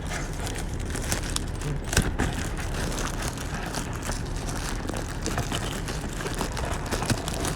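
A plastic wrapper crinkling and rustling in short, irregular crackles as headphones are pulled out of it, over a steady low rumble.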